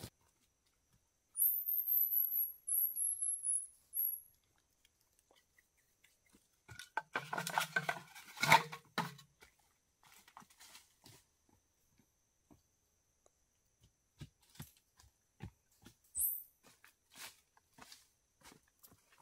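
Rustling footsteps and handling on the forest floor around a bamboo frame, with a louder clatter of rustling and knocking about seven to nine seconds in. A second or so in, a thin, very high call steps down in pitch for about three seconds, and a brief high chirp comes near the end.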